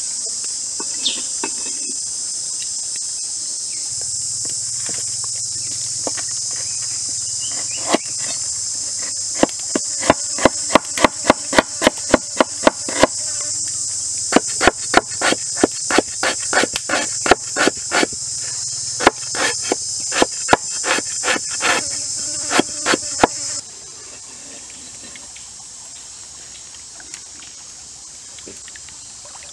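Knife chopping lemongrass on a wooden cutting board: runs of quick, sharp strikes, about three to four a second, from about a third of the way in until shortly before the end. Behind them is a steady, high-pitched insect drone, which cuts off suddenly near the end.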